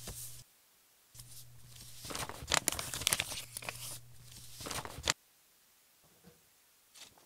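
Paper envelope being torn open by hand: a brief rustle at the start, then about four seconds of ragged ripping and crinkling paper that stops abruptly, followed by a couple of faint paper rustles.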